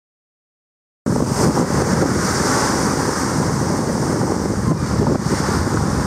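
About a second of dead silence, then wind buffeting the microphone over the rush of the sea and the ship's wake, recorded on deck of a vessel under way.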